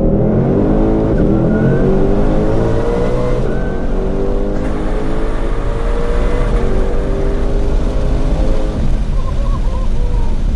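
Supercharged Ford Shelby GT500 V8 pulling under load, its pitch climbing steadily through a gear with a faint supercharger whine over it, then the revs drop off about nine seconds in.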